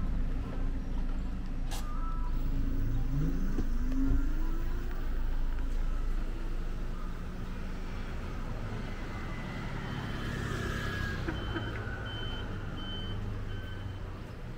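Town street traffic with engines running. One engine rises in pitch as a vehicle pulls away a few seconds in, and another vehicle passes about ten seconds in. Near the end comes a run of short, evenly spaced high beeps.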